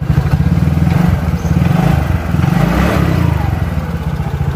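Yamaha Mio GT scooter's single-cylinder four-stroke engine running steadily, with an even, rapid firing beat.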